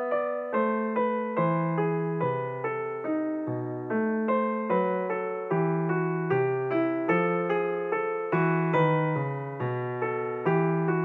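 Background piano music: evenly paced notes over a lower bass line, each note struck and fading.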